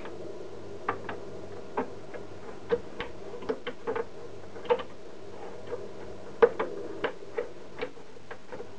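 A dozen or so light, irregularly spaced clicks and taps on the sheet-metal case of a 3Com 4228G network switch as it is handled, each with a brief metallic ring, over a faint steady hum.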